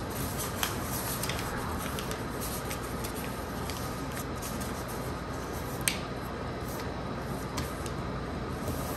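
A sheet of paper being folded and creased by hand: a few short crisp paper clicks and crackles, the sharpest about six seconds in, over a steady background hiss.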